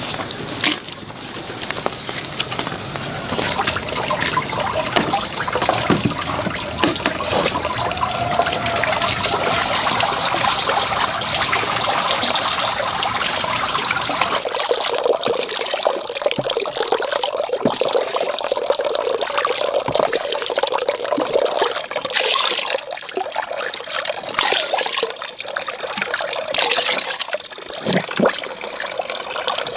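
Water running and splashing, a continuous rushing noise with small irregular splashes. About halfway through, the deeper part of the sound drops away.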